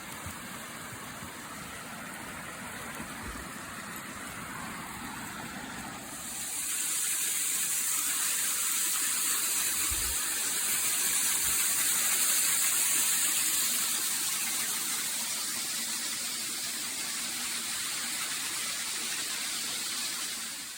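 Waterfall rushing steadily, growing louder and brighter about six seconds in.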